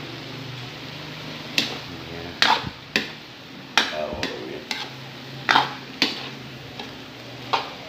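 A metal spoon stirring vegetables in a metal wok, giving sharp scrapes and clanks against the pan at uneven intervals, about a dozen in all.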